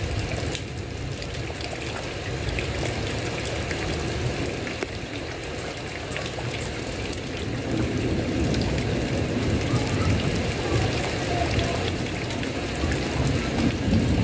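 Steady heavy rain falling on a roof, an even hiss of drops over a low rumble that swells somewhat in the second half.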